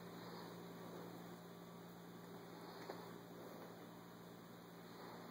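Near silence: a steady low electrical hum, with one faint tick about three seconds in.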